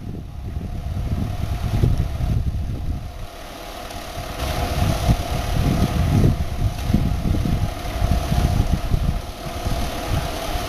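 Hydraulic excavator's diesel engine running steadily, with a constant whine over an uneven low rumble.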